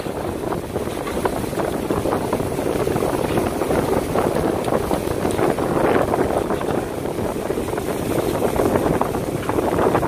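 Steady rushing noise of wind and water aboard a fishing boat under way at sea, with wind buffeting the microphone.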